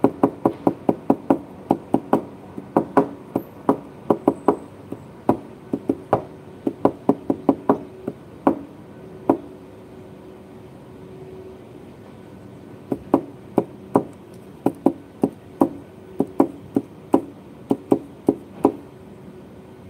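Quick, irregular taps on a tabletop, several a second in runs, with a pause of a few seconds in the middle.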